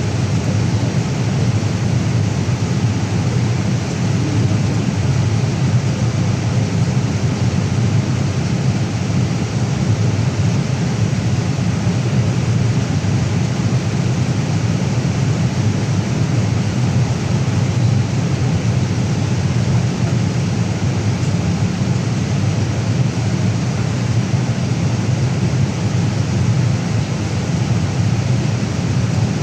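Steady cabin noise of a Boeing 787 Dreamliner in flight: engine hum and airflow blended into an even, low-pitched rumble that does not change.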